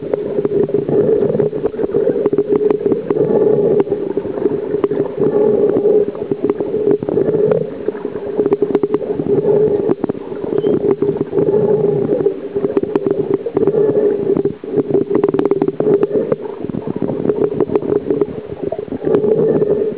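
Underwater sound picked up by a submerged camera: a muffled, steady rushing of water, thick with small clicks and crackles, swelling and easing every few seconds.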